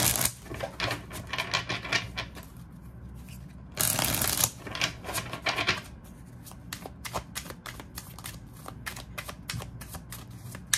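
A deck of tarot cards shuffled by hand: a loud riffling burst at the start and another about four seconds in, then a fast run of light, sharp card clicks.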